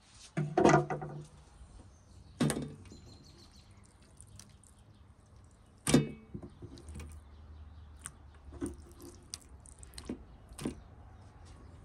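Kitchen knife knocking on a wooden cutting board as raw beef liver is sliced, then wet liver slices set down on a stainless steel tray: a handful of separate knocks and soft slaps, the loudest about a second in.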